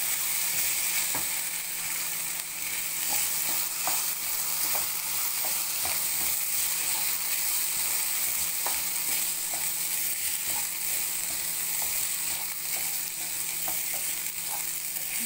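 Soaked cracked wheat sizzling as it roasts in oil in a nonstick pan, stirred steadily with a spatula. It makes a steady hiss with scattered light scraping clicks of the spatula against the pan.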